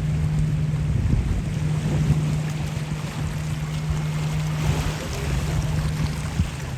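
A boat engine running with a steady low hum, over the rumble of wind on the microphone; the hum fades near the end.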